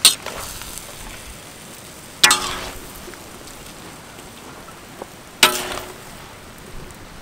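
Stir-fried noodles sizzling in a large metal wok while a metal ladle and spatula toss them. The utensils clang against the wok three times, about every two to three seconds, each clang ringing briefly.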